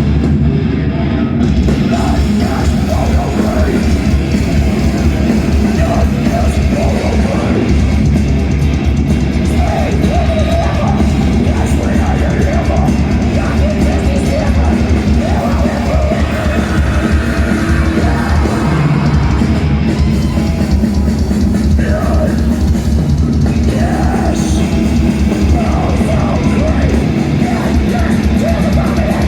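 Grindcore band playing live at high volume: heavy distorted guitars, drum kit and yelled vocals, recorded on a mobile phone in the crowd.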